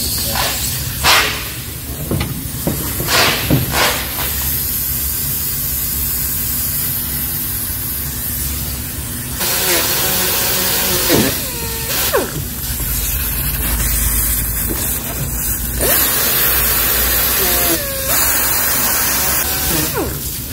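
Steady hiss of a small air-powered sander scuffing the paint off around a crack in a plastic car bumper, with a few sharp knocks in the first few seconds.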